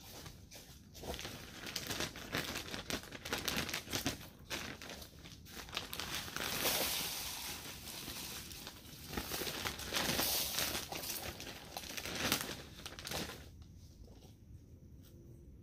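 Plastic sack of potting soil crinkling as it is handled and emptied, with the rustle of soil pouring out; the rustling comes in uneven surges and dies down near the end.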